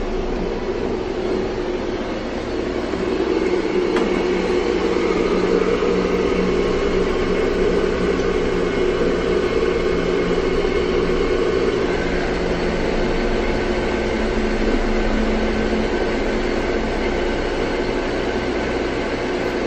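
Steady droning hiss and hum of a heavily amplified phone recording in a quiet house, the recording that is said to catch an unexplained child's crying from upstairs. The drone grows a little louder about three seconds in.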